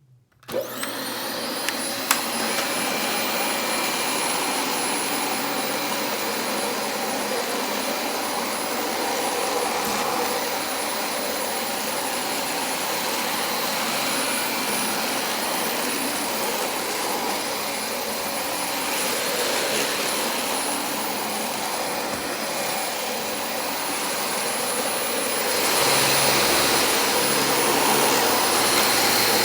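Dyson DC25 upright vacuum cleaner switched on about half a second in, then running steadily with a high-pitched whine over the rush of its suction. There is a sharp click about two seconds in, and the sound grows louder near the end.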